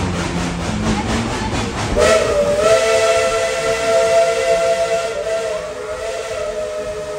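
Three-chime steam whistle of 1917 Baldwin narrow-gauge 4-6-0 ET&WNC No. 12 blowing one long, steady chord with steam hiss, starting about two seconds in and still sounding at the end. Before it, the train rumbles along the track.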